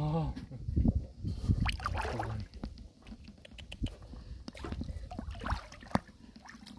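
Splashing and sloshing in shallow water, with scattered clicks and knocks.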